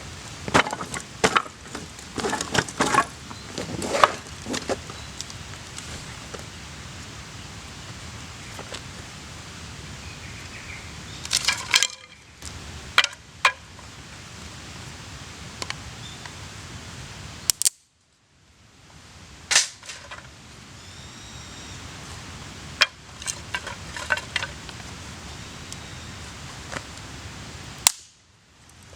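Wood fire crackling, with irregular sharp pops and snaps over a steady low hiss.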